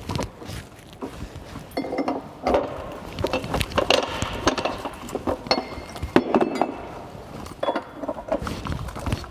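Steel hydrant wrench clinking and clanking against a fire hydrant's metal nut and caps as it is fitted and worked. The sound is an irregular string of sharp metal clicks and knocks, some ringing briefly.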